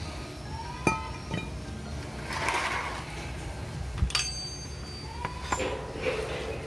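Metal brake parts being handled for cleaning: four sharp metallic clinks and knocks, some with a brief ringing tone, and a short rustle about two seconds in.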